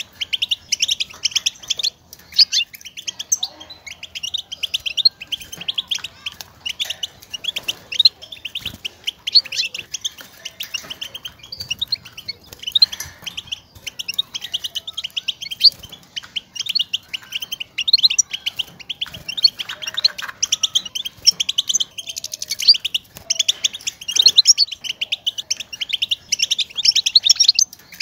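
European goldfinch calling in a fast, continuous twittering chatter of short high chirps. These are the contact calls goldfinches use to call to each other, played to stimulate caged males to sing.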